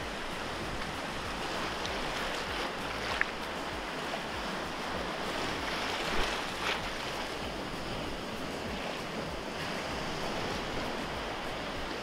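Surf breaking and washing over and around a bamboo raft, a steady rush of water with wind buffeting the microphone. There are two brief louder moments about three and six seconds in.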